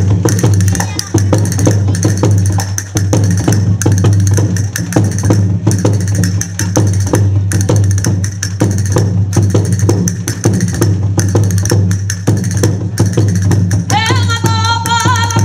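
Spanish folk percussion playing a steady, driving sorteao dance rhythm of repeated drum and wooden strokes. Near the end a high melody comes in over it.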